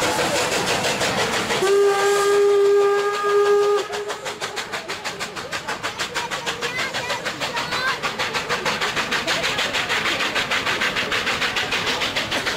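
Steam locomotive sounding one long chime-like steam-whistle blast of about two seconds, over the rush of steam. Its exhaust then beats out in quick, even chuffs, about three or four a second, as the engine works away.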